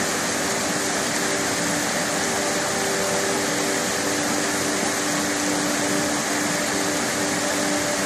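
Waterfall cascading over rocks into a pool, a steady unbroken rush of water.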